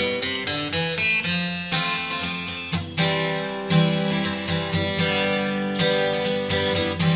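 Background music: an acoustic guitar playing a run of quickly decaying plucked notes and strums at a steady, moderately lively pace.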